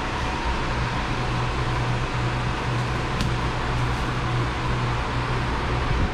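Steady mechanical whir: a low hum under an even hiss, unchanged throughout, with one faint tick about three seconds in.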